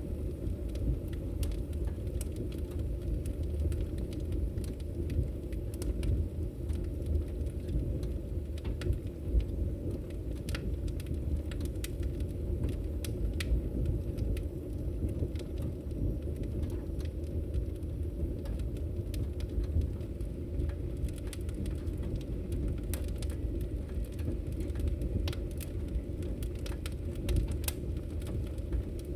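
Fire crackling: a steady low rush of burning with frequent, irregular sharp pops and snaps scattered throughout.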